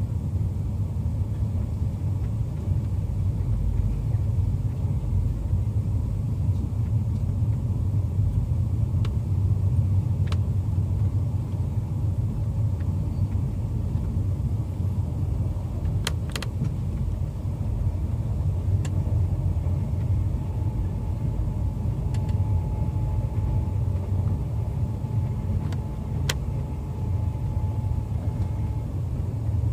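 Steady low rumble of a passenger train running along the track, heard from inside a coach, with a few sharp clicks scattered through it.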